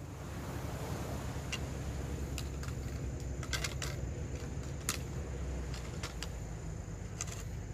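Steady low wind and surf rumble with about a dozen sharp, light clicks and clinks scattered through, a quick run of them about three and a half seconds in.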